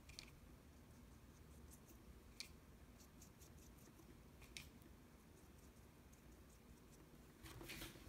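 Near silence: a few faint taps and light scrapes of a watercolor brush against a plastic palette and paper.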